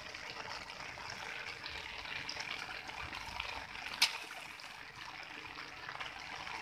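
Water trickling and lightly splashing in a flooded rice paddy, a steady even wash, with one sharp tap about four seconds in.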